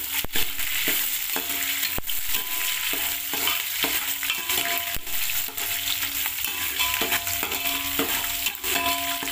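Green chillies, garlic and curry leaves sizzling in hot oil with mustard seeds while a spatula stirs them, scraping and knocking against the metal pan. The frying hiss is steady, with scattered sharp clicks and brief ringing scrapes.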